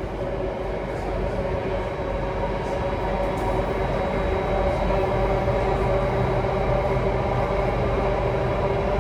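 Alstom Metropolis C830C metro train running between stations, heard from inside the carriage: a steady rail rumble with a hum of several steady tones, growing somewhat louder over the first few seconds.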